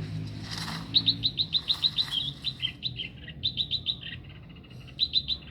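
Small bird chirping: quick runs of short, high notes, several a second, starting about a second in and coming in bursts, over a faint low hum.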